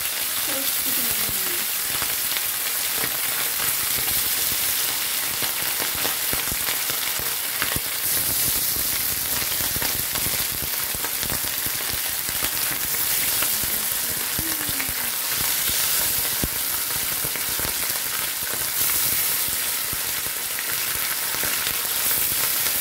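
Pieces of beltfish frying in hot oil in a pan: a steady sizzling hiss dotted with many small crackles and pops.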